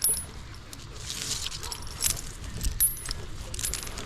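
Light metallic clinking and jingling with scattered sharp ticks, like a tree climber's carabiners and rigging hardware knocking together.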